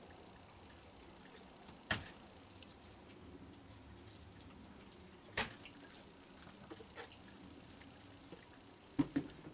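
A few sharp clicks and knocks over a faint, steady background: one about two seconds in, the loudest about five and a half seconds in, and a quick double near the end, with softer taps between.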